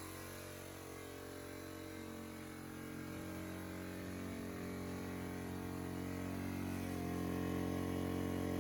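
Ryobi RIG1000 1000-watt inverter generator running steadily after its repair, a little bit noisy; its engine note steps up slightly and gets louder about seven seconds in.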